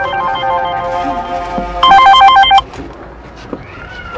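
A mobile phone ringtone: a quick electronic melody of beeping notes, repeating, that gets louder shortly before it cuts off about two and a half seconds in.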